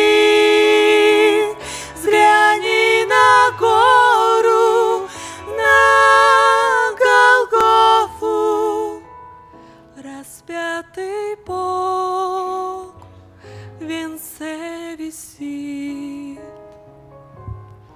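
A woman singing a slow Russian-language hymn with instrumental accompaniment, holding long notes with vibrato. About eight seconds in, the voice stops and the accompaniment carries on more quietly.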